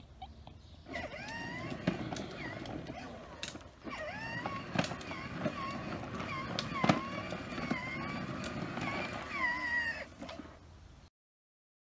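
Plastic wheels of a toddler's ride-on toy car rolling over a concrete sidewalk: a steady rumble with clicks as the wheels cross the slab joints. It cuts off suddenly near the end.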